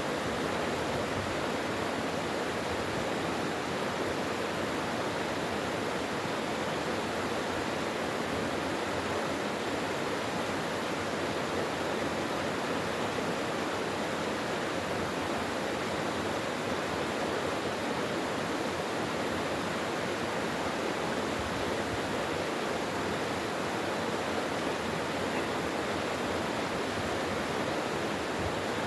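Mountain stream water rushing and splashing over rocks, a steady, unbroken flow.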